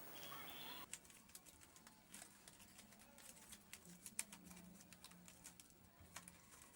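Near silence: faint scattered clicks, with a faint low hum for a couple of seconds in the middle.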